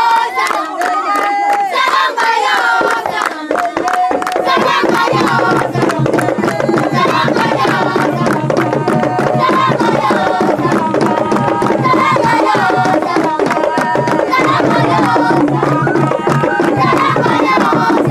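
A group of voices chanting together over hand drums and other percussion, with a steady low note joining about five seconds in.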